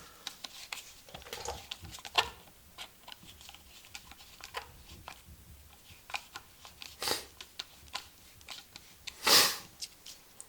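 Light clicks, taps and rubbing of small bolts and hand tools being handled as 1/4-inch bolts are tried on a dirtbike, with a louder brief rub about nine seconds in.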